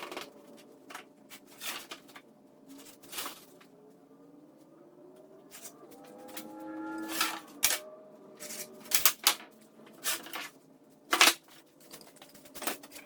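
A series of irregular sharp clicks and knocks, about a dozen spread unevenly, the loudest a little after eleven seconds in, over faint sliding pitched tones.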